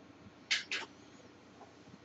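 Two brief soft ticks about a quarter second apart, about half a second in, over faint room hiss.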